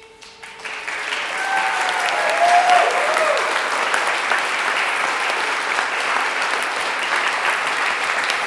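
Audience applauding, swelling up over the first second and then holding steady, with a few voices cheering about one to three seconds in.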